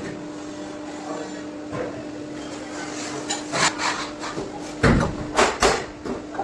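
Steady machine hum, then from about halfway a run of sharp knocks and bangs on sheet metal, the loudest three close together about five seconds in.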